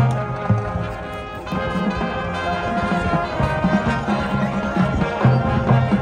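High school marching band playing, the brass carrying the tune over a rhythmic low pulse.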